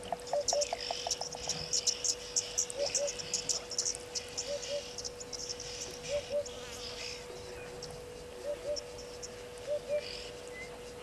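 Insects chirping and ticking in quick high bursts, with a short two-note call repeating every second or two, over a steady low hum.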